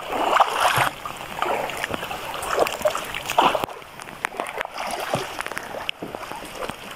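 Water splashing and sloshing irregularly around a raft moving on a river, in uneven surges with a few sharp knocks.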